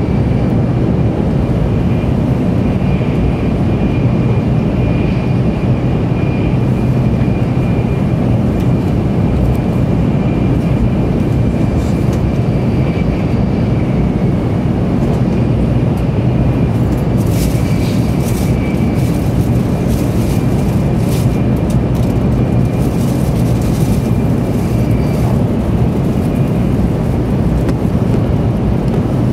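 Cabin running noise of a 700 series Shinkansen at speed: a steady loud low rumble with a faint steady high tone. A stretch of light ticking comes in about two-thirds of the way through.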